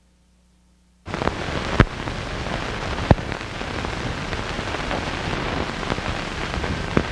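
Surface noise from an old film print's soundtrack running over the countdown leader: a steady hiss with crackle and a few sharp pops from dust and scratches, cutting in about a second in.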